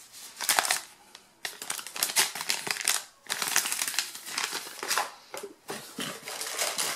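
Paper instruction sheets rustling and crinkling as they are handled and folded, in irregular bursts of crackle. Near the end, a cardboard box is handled and its flap opened.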